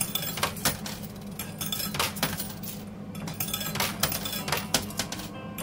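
Quarters clinking in a coin pusher machine: a quick, irregular run of metallic clicks as coins drop and knock together, over a steady low hum.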